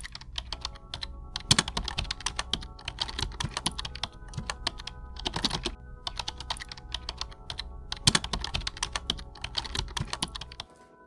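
Rapid, irregular typing taps on a phone's touchscreen while a text message is written, over a low steady hum that stops shortly before the end.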